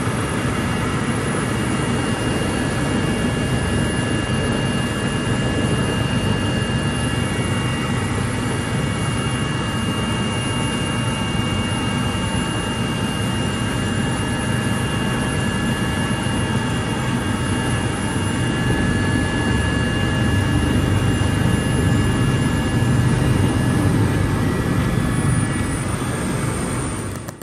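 Helicopter turbine engine and main rotor running, heard from inside the cabin: a loud steady rumble with a high turbine whine over it, growing a little louder in the last few seconds.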